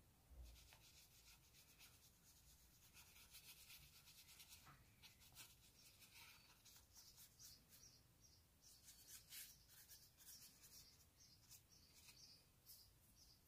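Faint, scratchy brushing of a thin paintbrush stroking and dabbing paint across charcoal-covered sketchbook paper, in many short, uneven strokes, with a soft knock about half a second in.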